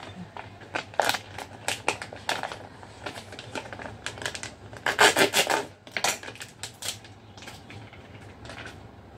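Clear plastic bag crinkling and rustling in the hands as a series of sharp, irregular crackles, with a dense flurry about five seconds in.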